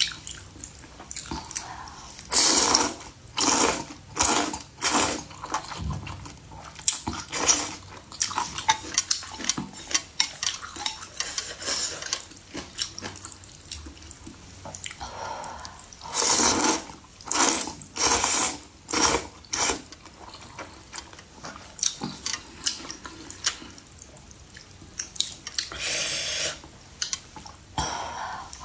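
Eating soup: slurps in short clusters, with utensils clicking against a bowl in between.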